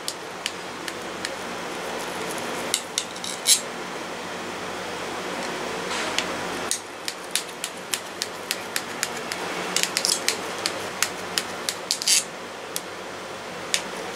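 Table knife scoring a chilled gram-flour and potato slab into pieces in a stainless steel plate. The blade repeatedly clicks and scrapes against the steel, in irregular strokes that come more often in the second half, over a steady hiss.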